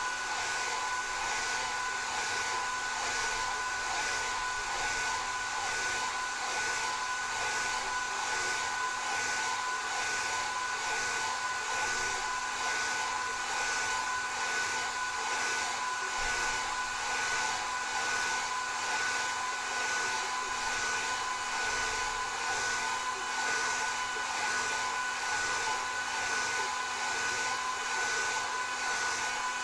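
Hair dryer blowing steadily on hair, a continuous airy hiss with a steady whine from its motor. The hiss pulses slightly and regularly throughout.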